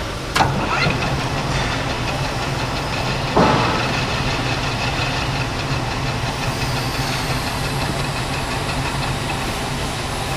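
Metal lathe being started: a click, then a louder clunk about three and a half seconds in, and the lathe running steadily with its four-jaw chuck turning over a constant machine hum.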